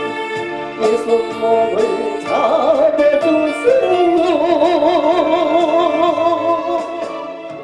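Gugak-style Christian praise music: a melody of long held notes with a wide, regular vibrato over short, sharp accompanying notes, dropping away at the very end.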